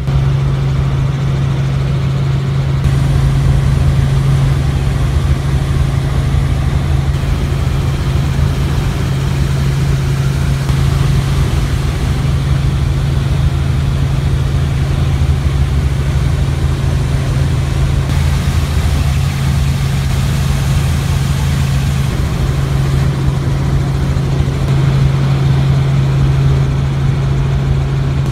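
Helicopter in flight heard from aboard: a steady drone of rotor and engine with a strong, constant low hum.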